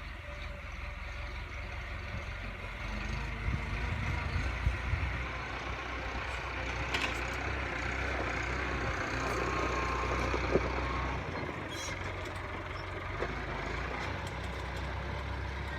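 Tractor engine running steadily, with a few clunks over it.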